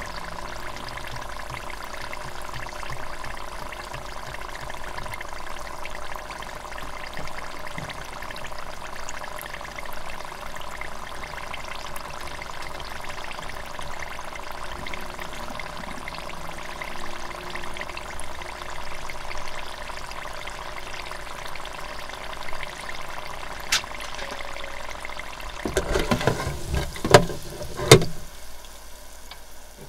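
Hot oil in an electric deep fryer sizzling and bubbling steadily around a frying loempia (spring roll). Near the end comes a short run of sharp knocks, the loudest two about a second apart.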